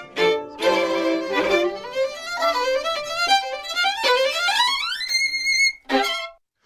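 Solo violin music: a run of notes climbs quickly to a high held note with vibrato, then one short note, and the music cuts off abruptly.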